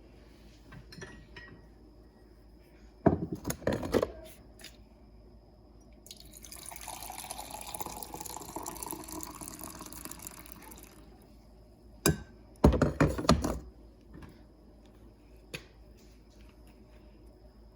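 Water running from a tap for about five seconds, between two clusters of sharp clattering knocks.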